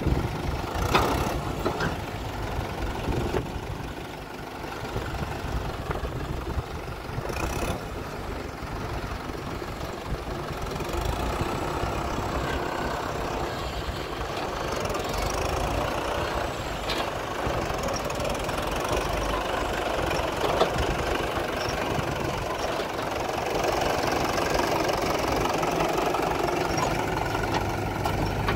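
Mahindra farm tractor's diesel engine running, pulling an emptied tipping trolley; it grows louder in the second half as the tractor comes close. A couple of short knocks sound early on.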